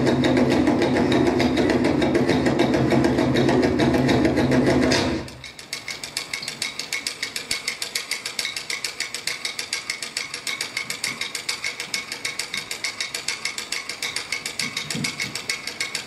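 Rapid, even mechanical clicking in the stage dance's soundtrack. A loud humming layer plays with it and cuts off abruptly about five seconds in, leaving the clicking on its own.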